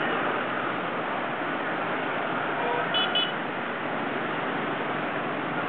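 Steady traffic noise of motorcycles on a city street, heard from a moving motorbike, with a short horn beep about three seconds in.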